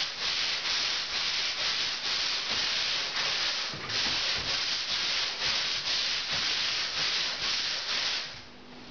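Hand sanding a plasterboard ceiling join with sandpaper on a hand block, in quick back-and-forth strokes about three a second that stop shortly before the end.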